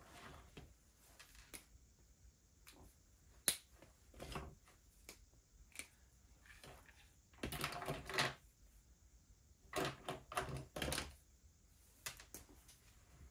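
Irregular clicks and taps, with denser runs of tapping about seven and a half seconds in and again about ten seconds in.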